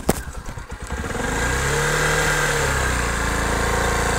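Motorcycle engine ticking over with a sharp click near the start, then revving as the bike pulls away. The engine note rises and falls back to a steady run about two seconds in, with wind hiss on the microphone as it gets under way.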